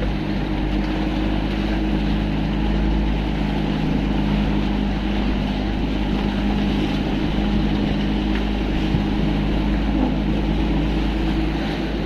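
A motorboat's engine running steadily at an even pitch, over a constant rushing noise of wind and water.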